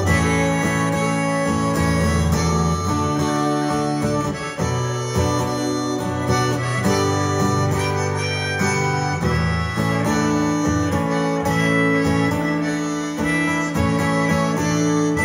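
Harmonica playing a melody over a strummed acoustic guitar.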